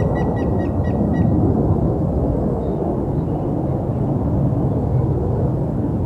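Grey-headed woodpecker singing: the last of a run of clear whistled notes that slow down and stop about a second in. A loud, steady low rumble lies under it.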